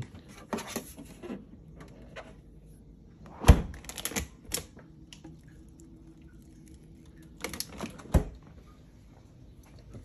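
Refrigerator doors being opened and shut on an LG InstaView fridge: a few clicks and knocks. The loudest is a sharp thump about three and a half seconds in, with another near the end.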